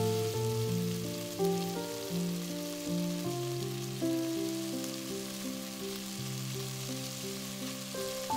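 Beef cubes sizzling as they sear in oil in a pot, under background music of slow, held notes.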